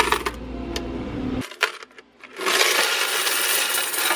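Coins clinking, then about halfway through a loud, continuous jingle of a mass of coins being poured out, as when a vending machine's coin box is emptied.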